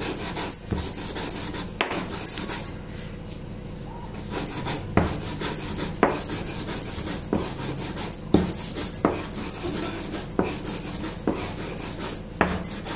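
Green chillies, garlic and salt being ground on a silbatta, the flat stone with a stone roller: a rough crushing scrape with a sharp stone knock about once a second.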